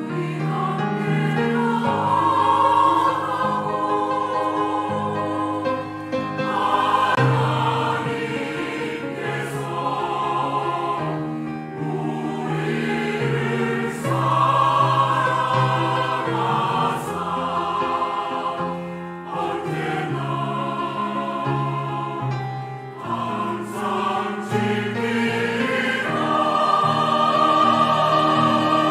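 Mixed church choir of men and women singing a sacred choral piece together in long, sustained phrases, with brief breaths between phrases.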